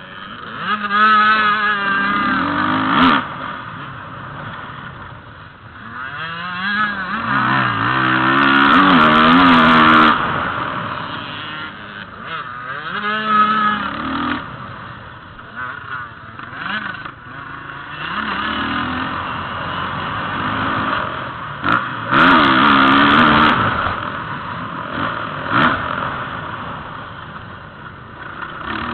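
Motocross dirt bike engines revving hard and dropping back again and again, their pitch climbing on the straights and falling away into the turns. There are a few short knocks over the bumps.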